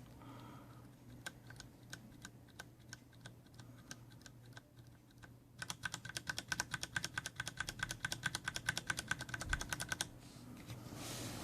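Typing on a CM Storm Quickfire Rapid tenkeyless keyboard with Cherry MX Brown switches: a few slow single keystrokes, then from about halfway a fast run of typing for about four seconds that stops suddenly. A brief rustle near the end.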